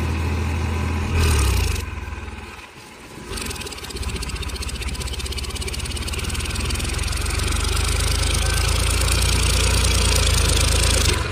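Eicher tractor's diesel engine working under load as it pulls a harrow through deep mud. The sound dips for a moment early on, then runs steadily and grows a little louder.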